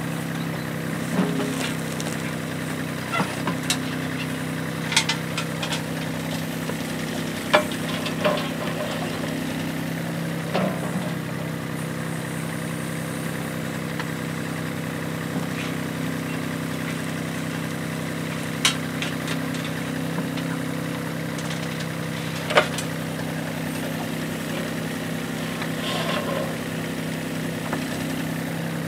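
Yuchai YC15-7 mini excavator's diesel engine running at a steady speed while it digs, with short sharp knocks and clunks scattered through as the bucket and arm work a dirt pile.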